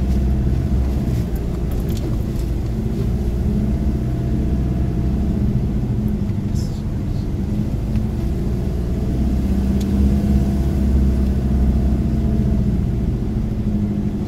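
Four-wheel-drive vehicle engine running under light load as it drives slowly along a rough dirt track, heard from inside the cabin: a steady low hum whose pitch slowly rises and falls, with a few short knocks and rattles from bumps in the track.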